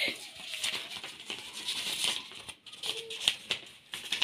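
A long paper till receipt rustling and crinkling in irregular crackles as it is handled and unfolded.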